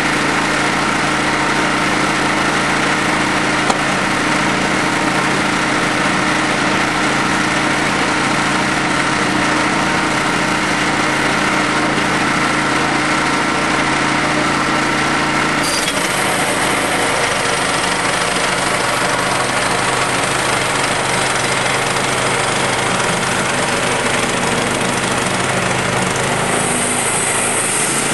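Band sawmill's engine running steadily under load as the mill cuts. About halfway through its tone changes suddenly, and a high hiss joins it near the end.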